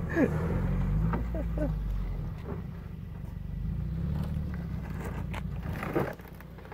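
Motorcycle engine running at low revs, a low steady drone that dips a little midway and falls away near the end.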